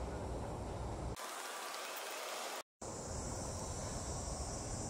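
Outdoor ambience spliced from short clips with abrupt cuts: a low rumble, then about a second in a stretch of plain hiss, a brief dropout to silence, and the rumble again joined by a steady high-pitched drone.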